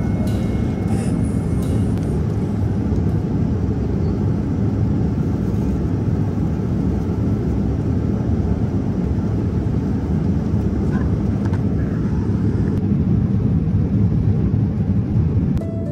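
Steady low rumble of a jet airliner's cabin noise in flight, heard from a passenger seat inside the cabin.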